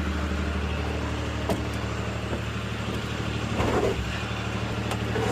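The 40-horsepower Kohler diesel engine of a Vermeer CTX100 mini skid steer running steadily, with a single knock about a second and a half in.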